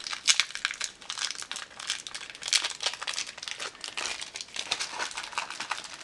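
Plastic packaging crinkling, with light clicks of small plastic and metal Beyblade parts being handled and set down.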